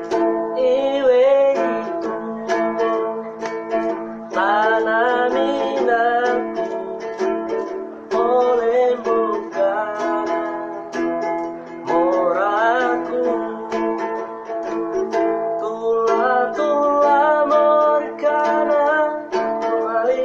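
A voice singing a Butonese regional song in phrases over a strummed plucked-string accompaniment.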